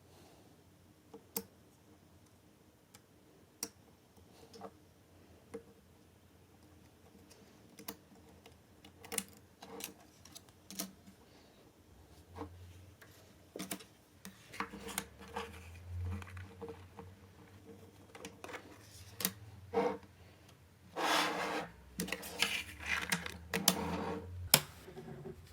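Small neodymium magnetic balls clicking as they snap together one by one, scattered single clicks at first, then more frequent, with a dense run of rapid clicking and rattling near the end.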